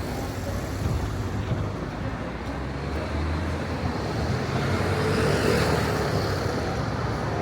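Road traffic going by: a steady low engine hum with tyre noise, swelling louder as a vehicle passes about five seconds in.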